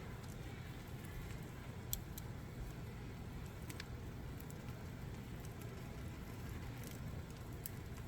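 Campfire burning with sparse sharp crackles and pops, about five in the stretch, over a steady low rumble.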